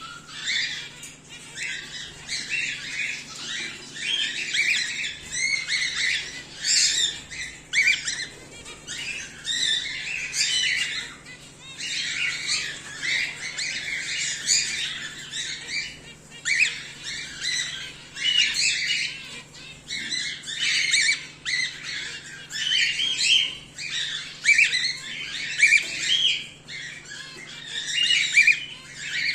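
Cockatiels calling in an aviary: a dense, overlapping stream of short chirps and squawks with brief lulls, over a faint steady low hum.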